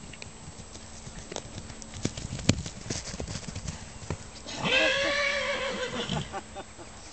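Trotter mare's hooves drumming at a gallop on paddock turf, an irregular run of thuds with the loudest strike about two and a half seconds in. Then a horse whinnies for about a second and a half, the call wavering and falling slightly.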